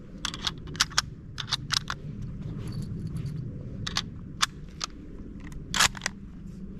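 An irregular run of sharp clicks and clinks, a dozen or more and the loudest near the end, over a steady low rumble.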